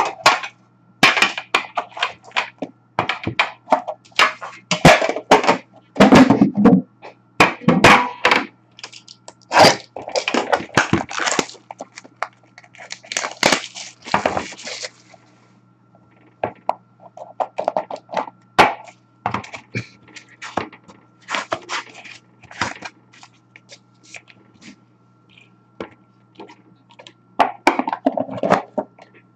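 Hockey card box and its wrapped pack being opened and handled by hand on a glass tabletop: a quick run of sharp clicks, taps and knocks, with a longer stretch of rustling packaging about halfway through.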